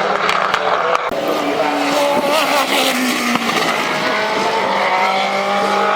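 Several racing car engines running on a circuit, their pitch rising and falling as the cars accelerate and pass.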